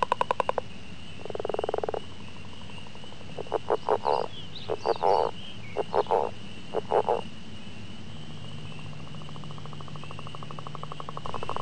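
Frogs calling in short, rapidly pulsed croaks: one about a second in, a cluster of several in the middle, and a longer run starting near the end, over a steady high-pitched hum.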